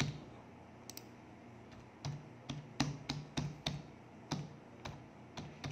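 Computer keyboard keys being pressed one at a time as a password is typed: about a dozen sharp clicks at an uneven pace, most of them bunched from about two seconds in.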